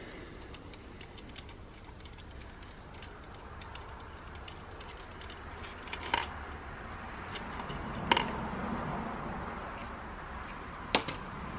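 Scattered small metallic clicks and clinks of hand tools, bolts and engine parts being handled during an engine teardown. There are sharper single clinks about six, eight and eleven seconds in.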